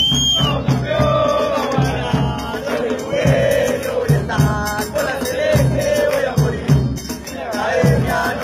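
A football supporters' section singing a terrace chant together, backed by drums beating a steady rhythm.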